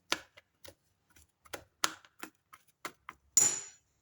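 Knife chopping garlic on a cutting board: sharp, uneven taps a few times a second, then a brief louder scrape near the end.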